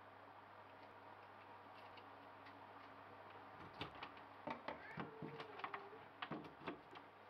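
Quiet room tone with a steady low hum. About four seconds in, a run of light clicks and taps starts, like small objects being handled, and it stops shortly before the end.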